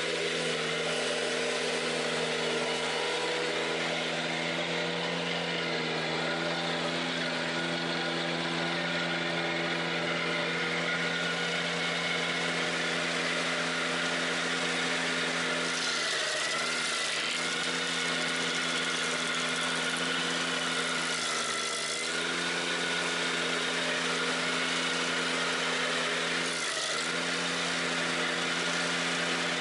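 Ventrac 4520Z compact tractor's engine running steadily while it drives the KC180 stump grinder. In the second half the engine note dips briefly three times, as the grinder takes load at the stump.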